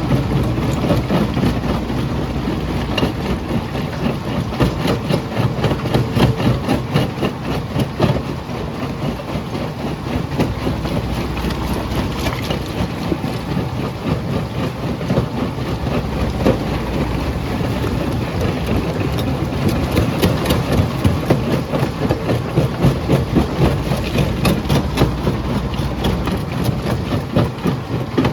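Jaw crusher running under load, its low rumble overlaid by a dense, continuous clatter of rapid knocks and cracks as rock is broken between the jaws.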